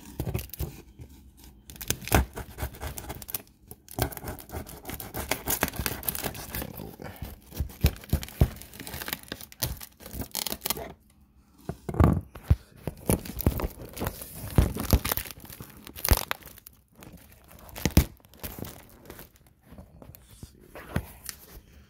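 Packing tape and plastic wrap being torn and pulled off a cardboard box, with crinkling and ripping in irregular bursts and short pauses.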